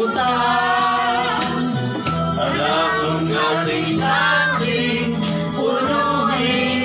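A group of men and women singing together over backing music played through a loudspeaker.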